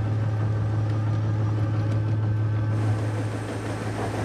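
Engine of a huge tracked peat-hauling machine running steadily, a constant low drone with a strong deep hum.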